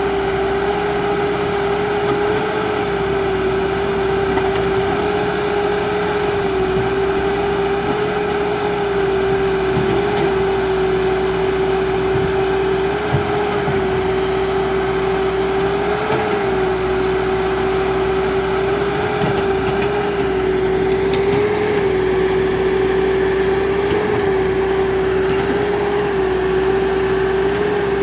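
Case 580 Super R backhoe loader's diesel engine running steadily under work, with a steady whine that briefly rises in pitch several times as it takes load.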